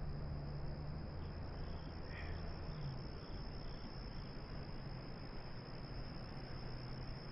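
Insects trilling in one steady high-pitched note over a faint even hiss. A low hum fades out about three seconds in.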